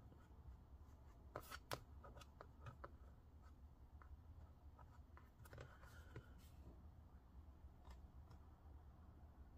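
Faint, scattered clicks and taps of small rubber pieces being fitted into a laptop's plastic bottom cover, in two short clusters, over a low steady hum.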